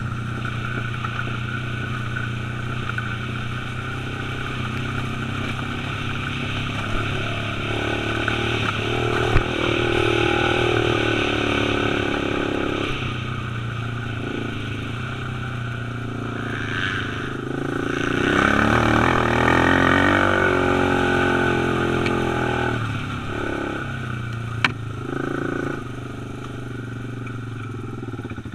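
Dirt bike engine running under way, revving higher twice: about eight seconds in and again from about eighteen to twenty-one seconds in. Two sharp knocks are heard, one near nine seconds in and one near twenty-five.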